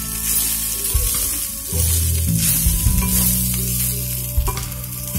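Wooden spatula stirring soaked rice flakes with chopped vegetables in a hot oiled pan: repeated scraping strokes against the pan over a light sizzle.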